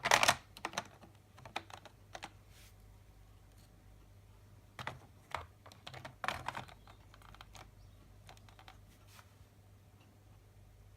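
Small plastic clicks and taps of a car instrument cluster's parts being handled and snapped back together by hand. They come in scattered bunches, the loudest right at the start and again about five and six and a half seconds in, over a faint steady low hum.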